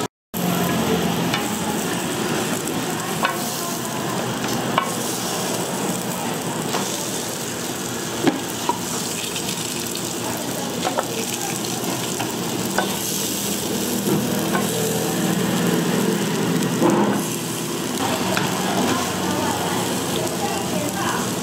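Food sizzling as it fries in hot oil, a steady hiss with occasional light clicks and knocks of cooking utensils. The sound cuts out for a moment just after it begins.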